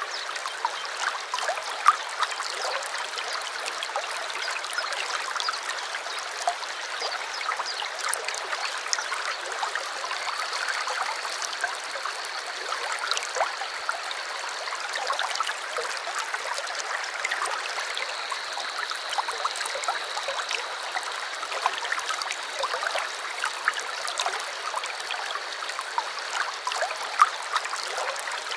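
A small stream running over stones, trickling and gurgling steadily with many small splashes. A faint thin high tone holds for several seconds, twice, over the water.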